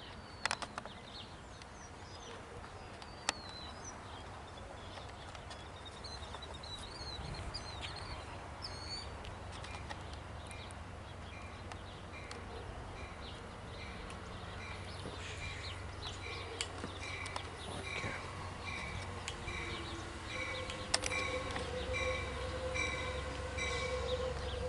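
Birds chirping, then a bell ringing steadily at about three strikes every two seconds. A low rumble builds near the end, with a steady tone coming in, as a train approaches.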